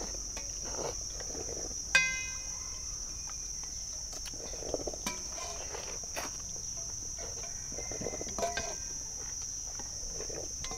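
Noodles being slurped and chewed from stainless steel bowls, over a steady high-pitched insect drone. About two seconds in, a spoon strikes a steel bowl with a sharp clink that rings briefly.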